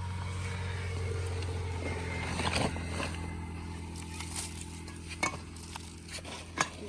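An engine running with a steady low hum that swells slightly and then eases off, with a few scrapes and sharp clicks over it.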